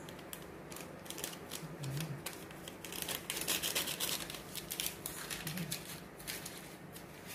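Paper sachet of baking powder being tapped and shaken out over a bowl of flour: a run of small sharp ticks and rustles, thickest about three to four seconds in.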